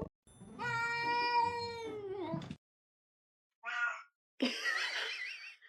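A cat meowing: one long, drawn-out meow lasting about two seconds that drops in pitch at its end, then a short second call, followed by a rougher, wavering cry near the end.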